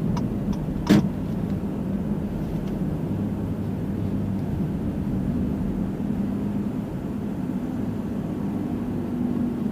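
Steady in-cabin hum of a car driving slowly, engine and tyres. A single sharp knock about a second in.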